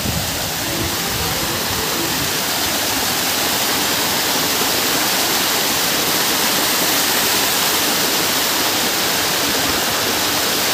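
Small waterfall spilling over rock ledges: a steady rush of falling water.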